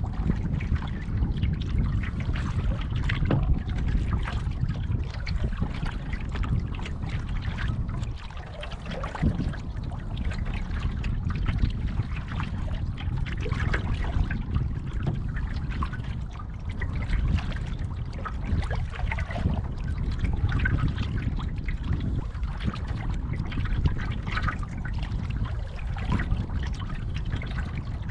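Water trickling and splashing against a moving canoe in small, irregular splashes, over a steady low rumble.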